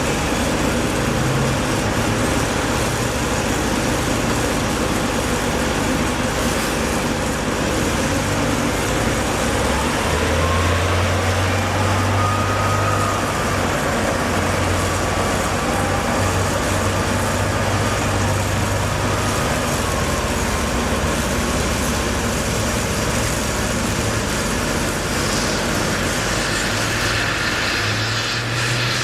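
Steady traffic noise with a heavy vehicle's engine running low and changing pitch; a faint whine rises about ten seconds in and then levels off.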